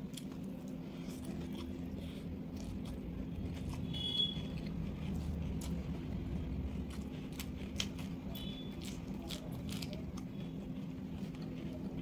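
Close-up eating sounds: scattered wet clicks and smacks of chewing and of fingers mixing rice on a plate, over a steady low hum.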